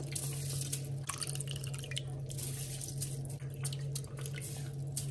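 Soft wet squelching and dripping sounds of washed jasmine rice going into a pot of tomato stew and being mixed in, in many small irregular clicks over a steady low hum.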